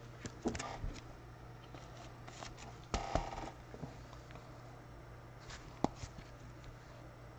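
Faint handling of trading cards: scattered light clicks and rustles, with a short rustle about three seconds in and a sharp click near six seconds, over a faint steady low hum.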